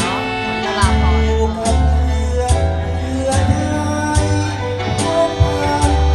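A song playing: a voice singing with vibrato over guitar, bass and a steady drum beat.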